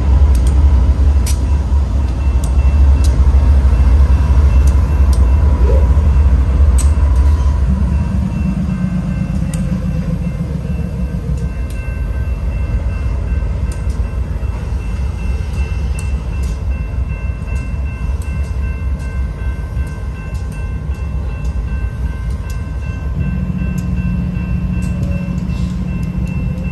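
Diesel locomotives hauling hopper cars over a street grade crossing, with a deep engine rumble that is heaviest for the first eight seconds and then lighter. The crossing signal's bell rings steadily over it.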